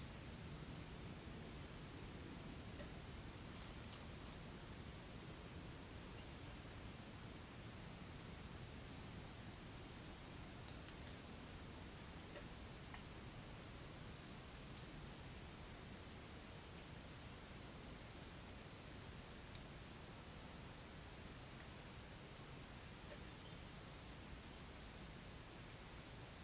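A bird calling in short, high chirps, roughly one a second at an uneven pace, over a faint steady outdoor background hum; one chirp a little past the middle stands out louder than the rest.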